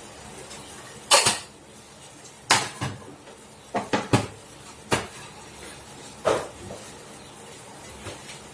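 A metal spoon clinking and knocking against a cooking pot and its utensils while sugar is spooned into a herbal kadha: about eight sharp, irregular clinks, a few ringing briefly.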